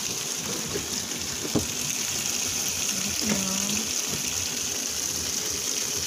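Water running into the tub of a top-loading washing machine as it fills, a steady rush of water, with a single knock about one and a half seconds in.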